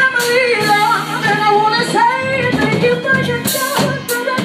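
A woman singing lead into a microphone over a live band, with cymbal crashes now and then.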